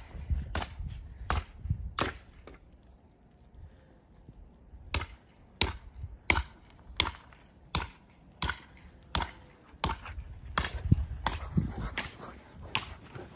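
Footsteps crunching in fresh snow at a steady walking pace, about one and a half steps a second. There is a gap of a couple of seconds before the steps pick up again.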